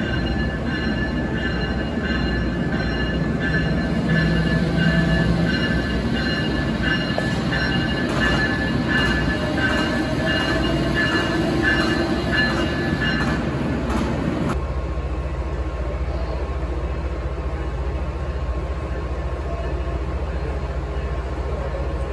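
Amtrak ACS-64 electric locomotive creeping along a station platform track, its wheels squealing in steady high tones, with a run of regular clicks about halfway through. After a sudden cut, a steadier, lower rumble is heard while a distant train approaches.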